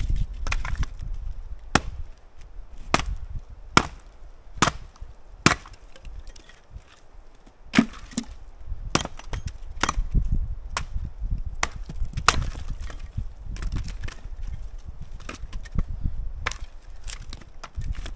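Axe chopping firewood: a series of sharp wooden strikes, roughly one a second, with a short pause midway.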